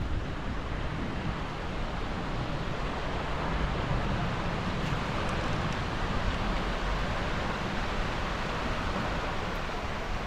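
Wind buffeting the microphone: a low, uneven rumble under a steady rushing hiss that swells a little midway.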